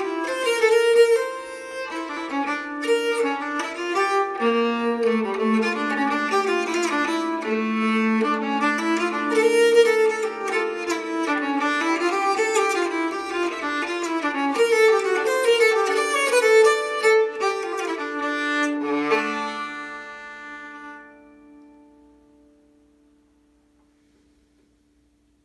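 Nyckelharpa bowed with a snakewood bow, playing a brisk Baroque dance tune with a moving lower part under the melody. It ends on a held low note about 19 seconds in, and the strings ring on, fading out over a few seconds into silence.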